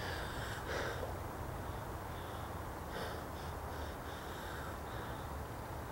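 Faint outdoor background: a steady low rumble with a few soft, brief sounds scattered through it.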